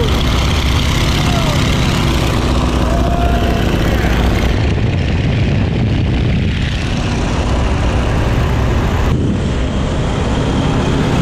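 Boeing Stearman biplane in flight, heard from its open cockpit: the radial engine and propeller running loud and steady under heavy wind rush. The sound shifts a little about four and a half and nine seconds in, where the shots change.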